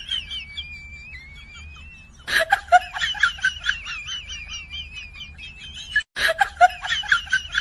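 Comic sound effect: a high, wavering whistle, joined about two seconds in by rapid high-pitched cackling at about three or four a second, with a brief break about six seconds in.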